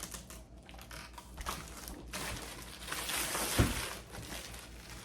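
Plastic packaging crinkling and rustling as wrapped parts are handled, denser in the second half, with a single knock about three and a half seconds in.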